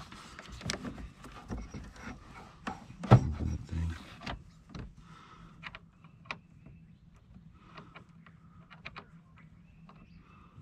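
A new car battery being shifted and pressed down into a Chevy S10's battery tray: a run of plastic knocks, scrapes and clicks, with one heavy thump about three seconds in, then lighter clicks.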